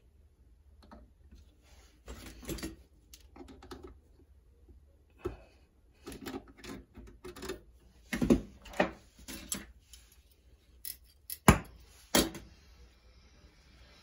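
Small clicks, knocks and rustles of hands handling copper tubing and wiring at a refrigerator compressor. Near the end come two sharp clicks as a hand torch is triggered, and its flame starts a steady hiss.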